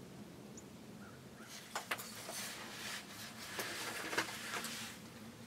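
Rustling and crackling, like movement through dry grass and brush, with a few sharp clicks, starting about a second and a half in and dying away near the end.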